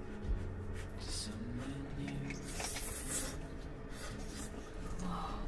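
Udon noodles being slurped and eaten with chopsticks, in a few short noisy slurps.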